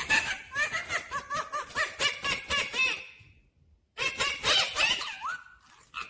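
Indian ringneck parakeet calling in a quick series of short rising-and-falling chirps for about three seconds, then, after a brief pause, more chirps and a longer rising whistle.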